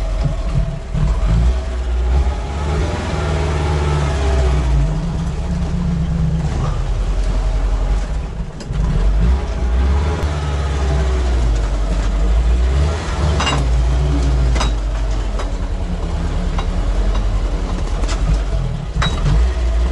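Tracked vehicle's engine running under load while driving over rough forest ground, heard from inside its cab, the engine note shifting with the throttle and dipping briefly about eight seconds in. Several sharp clanks come in the second half.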